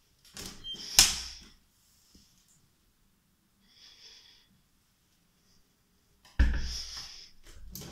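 Interior door being opened and shut: a sharp click of the latch about a second in, then a loud thump as the door closes about six and a half seconds in.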